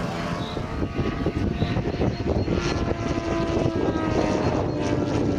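Radio-controlled aerobatic model airplane's propeller engine running in flight, its pitch falling gently in the second half.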